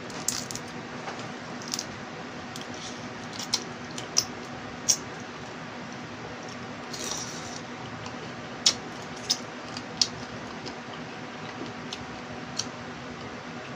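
Small boiled crabs being cracked and picked apart by hand, with sharp, irregular shell clicks and cracks, a dozen or so, over a steady low hum.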